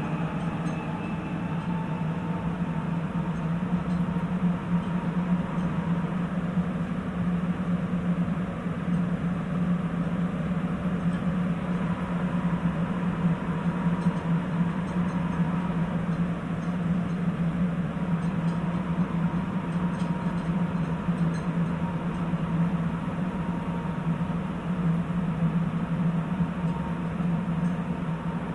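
Running noise inside a Sapporo Tozai Line subway car, a rubber-tyred train, travelling at steady speed through the tunnel. A continuous low hum, even in level, carries a faint higher tone above it.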